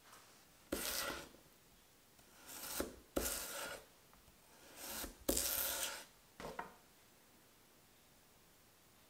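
Chef's knife slicing lengthwise through a raw peeled potato on a wooden cutting board: three rasping cutting strokes of about half a second each, a couple of seconds apart, each led in by a softer scrape.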